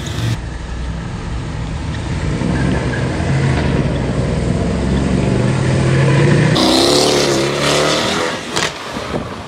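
Mercedes-AMG C63 S biturbo V8 accelerating hard, its engine note climbing slowly in pitch. About six and a half seconds in the sound changes to a higher, wavering note before it fades near the end.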